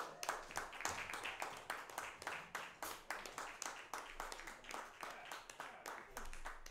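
A small audience clapping and applauding as the band's song ends, individual claps clearly separate rather than a dense roar.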